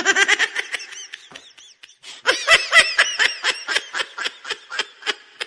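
A person laughing hard in rapid bursts of 'ha-ha'. It tails off about a second and a half in, then breaks out again louder about two seconds in.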